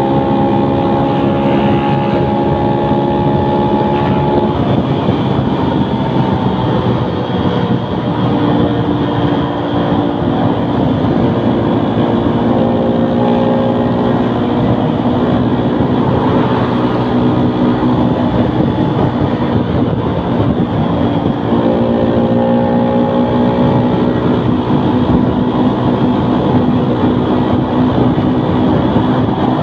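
Modified small motorcycle engine, fitted with a 56 mm piston, a cam and a racing control box, running hard at speed with wind on the microphone. Its pitch climbs slowly and drops several times, near the start and again about two-thirds of the way through, as it goes through the gears.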